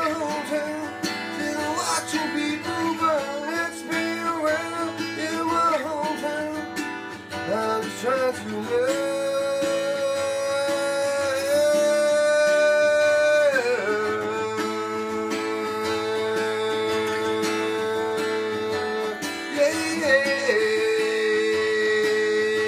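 A man singing his own song while strumming an acoustic guitar, holding long sung notes from about nine seconds in.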